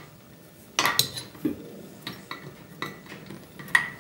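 Power cord being wrapped around a small table saw: the cord and its plug rustle and knock against the saw's body, with a few sharp clicks, two about a second in and the loudest near the end.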